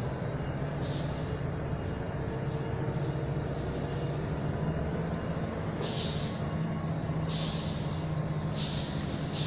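An engine runs steadily with a constant low hum. From about halfway through, short hissing bursts come every second or so.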